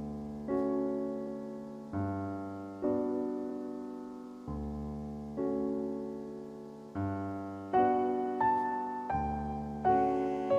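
Slow background piano music: single notes and chords struck about every second or so, each left to fade.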